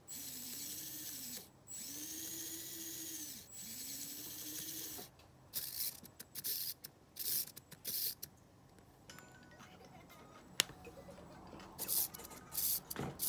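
The tiny electric blade actuator of a micro RC Liebherr 734 model bulldozer runs in three spurts of about a second and a half each, whining up in pitch, holding and dropping off as the blade is raised. It is followed by scattered light clicks and taps of the plastic model being handled.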